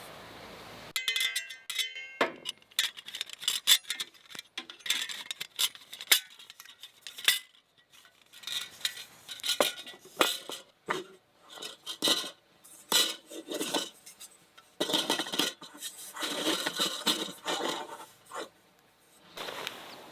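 Camp cookware and utensils clinking and scraping: a long run of quick, irregular metallic taps and knocks, some ringing briefly, starting about a second in and stopping shortly before the end.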